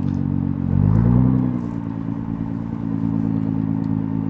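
Nissan GT-R R35's twin-turbo VR38 V6 with a non-catted midpipe, heard through its exhaust: the revs rise briefly about a second in and drop back, then the engine runs on at a steady low pitch.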